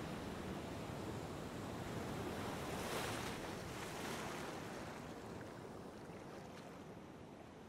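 Waves breaking on a beach: a steady wash of surf that swells about three seconds in, then slowly fades toward the end.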